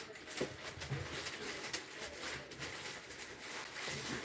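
Wooden spoon stirring a thick ricotta cheese filling in a stainless steel bowl: a run of irregular scrapes and taps against the metal.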